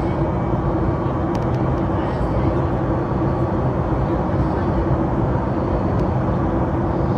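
Airliner's jet engines and rushing air as a steady drone heard inside the passenger cabin, with a constant hum underneath.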